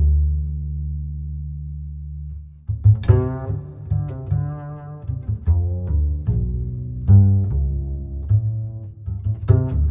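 Background music: a low held note, then a run of short plucked notes from about three seconds in.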